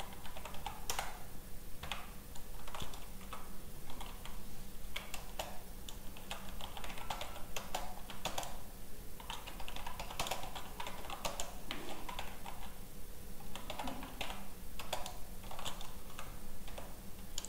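Computer keyboard being typed on: runs of quick keystroke clicks with brief pauses between them.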